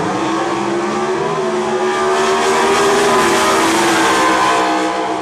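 Two Super Stock drag racing cars launching off the starting line and accelerating hard at full throttle. The engine pitch climbs and drops back at gear shifts about a second in and again about three seconds in, and the sound is loudest in the middle.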